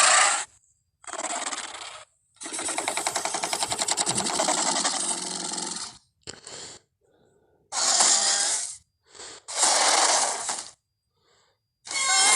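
Designed Carnotaurus dinosaur vocal sound effects played one after another: a string of separate calls of about a second each with short silences between them. The longest, a few seconds in, lasts about three and a half seconds and has a fast rattling pulse.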